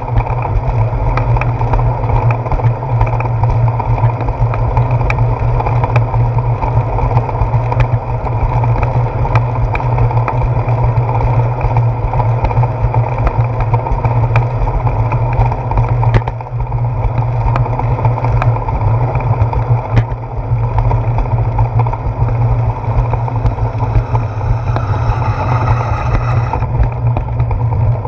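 Wind and ride noise on a handlebar-mounted GoPro Hero 4 as the bicycle rolls along a concrete path: a steady low rumble with small knocks from bumps in the path. Near the end a vehicle passing on the road alongside adds a brief hiss.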